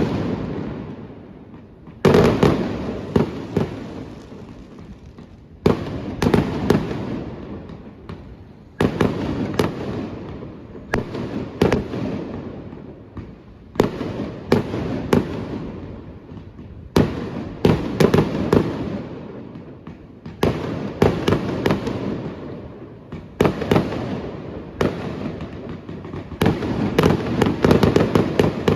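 Aerial fireworks going off in a long sequence: sharp bangs every few seconds, each followed by a fading crackle, with the bursts coming thicker near the end.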